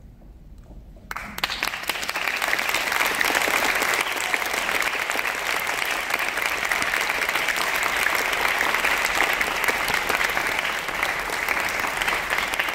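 After about a second of quiet, an audience breaks into applause that carries on steadily.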